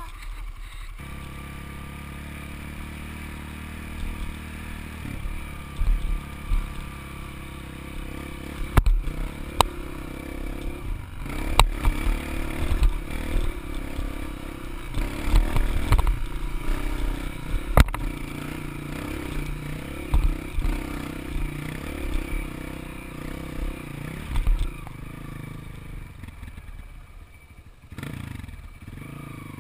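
Single-cylinder four-stroke dirt bike engine running under throttle while climbing a rough trail, rising and falling as the rider works the throttle. Repeated knocks and clatter come from the bike bouncing over the ground.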